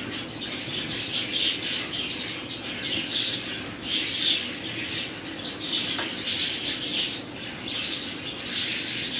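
Cloth rustling and swishing in a series of irregular swishes as a long woollen dress is pulled right side out and shaken by hand.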